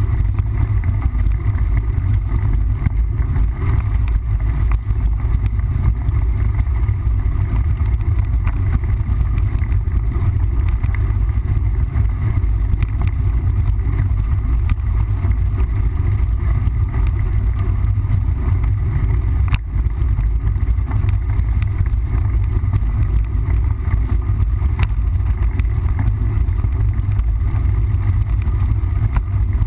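Steady low rumble of wind and rolling noise on a camera carried on a mountain bike riding a trail, with one sharp click about twenty seconds in.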